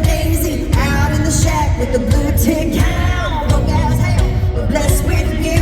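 Live country-rock performance: a woman singing lead over a full band with a steady, heavy drum beat.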